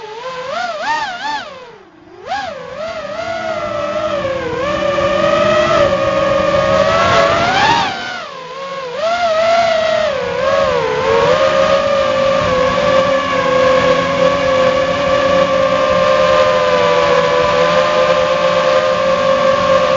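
Walkera F210 racing quadcopter's brushless motors whining, heard from its onboard camera. The pitch rises and falls with the throttle and drops away briefly about two seconds in and again around eight seconds. In the second half it holds a steady high whine.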